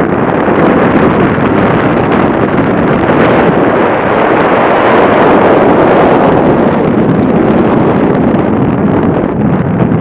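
Airflow rushing over the onboard camera's microphone of a radio-controlled model plane in flight: a loud, steady buffeting wind noise.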